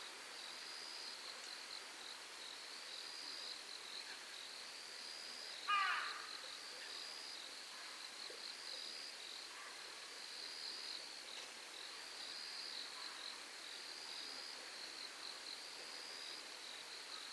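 Night insects trilling steadily, a high buzzing chirp repeating in phrases about once a second. About six seconds in, a bird gives a single short, harsh screech.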